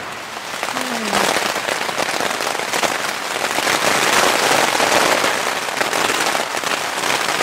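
Pouring rain drumming on the fabric of a North Face Triarch 2 tent, a dense, crackling patter of countless drops that grows louder about a second in and stays loud.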